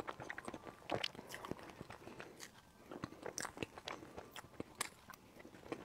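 Close-miked wet chewing and lip smacks of someone eating soft cream cake, with irregular sharp clicks a few times a second, some from a metal spoon scraping and tapping inside a plastic container.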